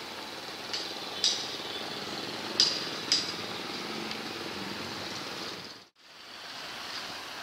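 Steady street traffic noise with several sharp, short clinks, about a second in and twice near three seconds. The sound drops out completely for a moment about six seconds in, then the traffic noise returns.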